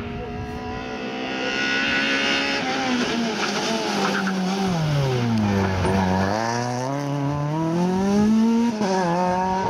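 Renault Twingo rally car's engine at high revs: the revs fall low about halfway through as the car slows, then climb again as it accelerates away, with a short dip near the end.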